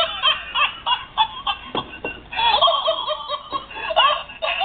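High-pitched laughing in repeated short bursts, with a brief pause about two seconds in.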